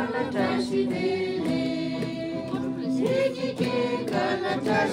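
Several voices singing together in long held notes.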